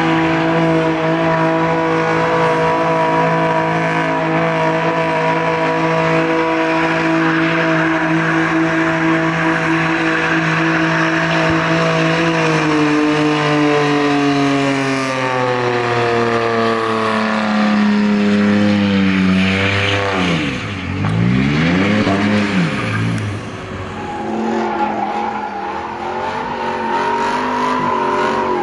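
BMW M2's engine held at high revs while its rear tyres spin and squeal in a smoky burnout. After about twelve seconds the revs sink slowly, then drop sharply and climb again, and near the end another car's engine revs as it drifts.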